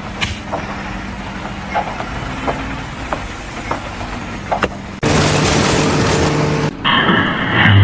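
A motor running steadily with scattered short clicks and knocks. About five seconds in, this cuts off suddenly to a louder, hissing machine noise, which changes abruptly again near the end.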